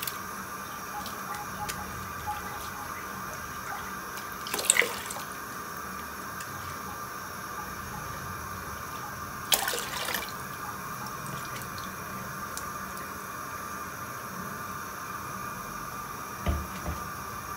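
Water heating in a steel pot on the stove: a steady faint hiss, with two brief watery splashes about five and ten seconds in, and two low knocks near the end.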